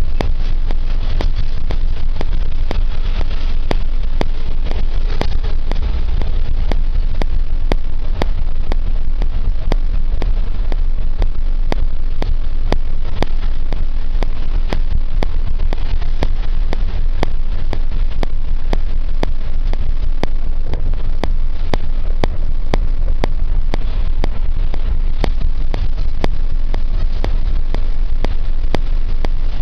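Coach engines running close by: a loud, steady low rumble with frequent short clicks through it.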